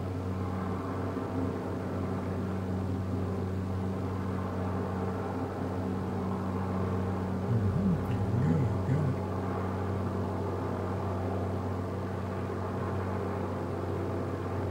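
An engine drones steadily at a low, even pitch. A short tone wavers up and down about eight seconds in.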